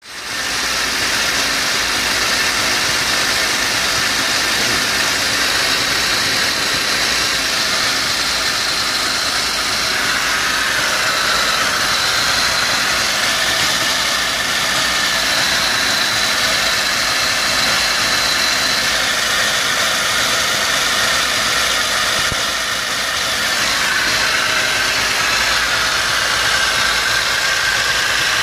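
Peugeot 205 GTi four-cylinder fuel-injected engine idling steadily in the engine bay. It is running quite rough on its first run after being swapped into the car, before being tuned up.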